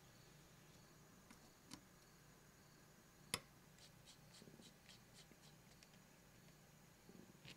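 Faint ticks of a small screwdriver turning a screw into a keyboard PCB, about five a second for a second and a half, after one sharp click about three seconds in; otherwise near silence.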